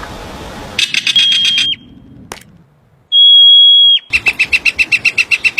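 Bird calls: a short fast run of notes, then one long high pure whistle, then a quick series of repeated notes, about nine a second.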